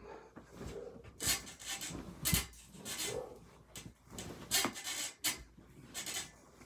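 Bedding and pillows rustling as they are pulled about and moved, in irregular bursts of fabric noise.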